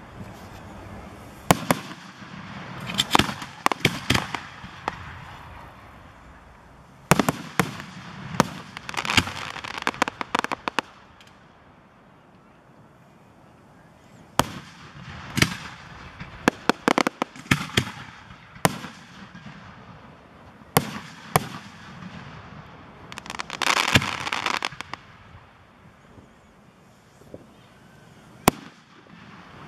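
Aerial fireworks shells bursting: repeated sharp bangs, some single and some in dense runs of rapid pops, with short quieter gaps between volleys.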